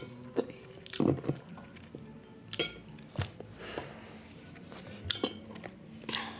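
Spoon or fork clinking and scraping against a dish while noodles are eaten, a scatter of short clinks about once or twice a second.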